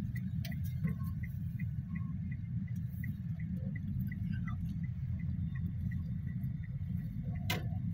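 Inside a car cabin: steady low engine and road rumble, with the turn-signal indicator ticking about three times a second as the car turns a corner, stopping about three and a half seconds in.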